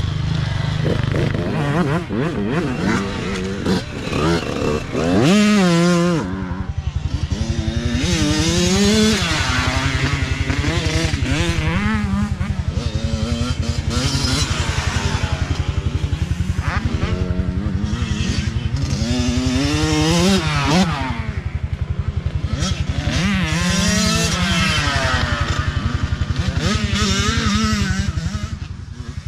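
Youth dirt bikes' small engines revving as they ride past one after another on a dirt track, the pitch repeatedly rising under throttle and dropping off between shifts, over a steady low engine drone.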